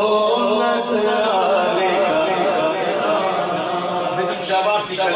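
Unaccompanied male voice chanting a naat melody, with no instruments, held and flowing notes rather than spoken words.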